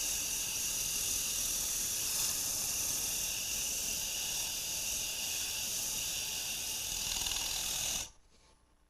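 Wooden segmented-bowl ring, held in a band clamp, pressed against an 80-grit sanding disc spinning on a lathe: a steady abrasive hiss as its glue face is sanded flat. The sound cuts off abruptly about eight seconds in.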